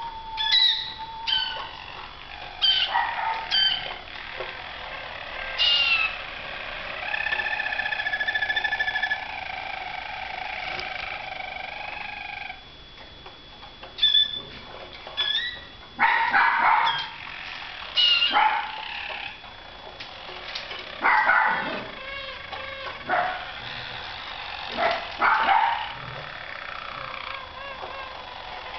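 Harzer Roller canaries singing, with a long low rolling trill held for several seconds early on. In the second half a small dog barks several times, a second or two apart.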